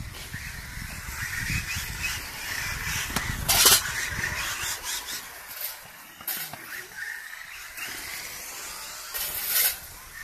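A 1:10-scale electric RC rally car drives across a sports-court track, its motor and tyres running on the court surface, with two short, loud bursts of noise about three and a half and nine seconds in.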